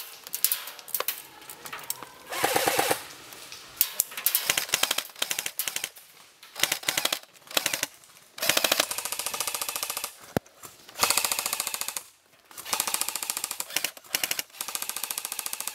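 Airsoft guns firing on full auto: repeated bursts of rapid clicking shots, some over a second long, with short pauses between them.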